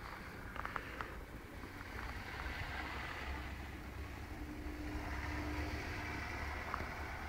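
A car driving slowly along a snow-covered street: a low, steady rumble with a faint engine hum in the middle. A few light clicks come in the first second.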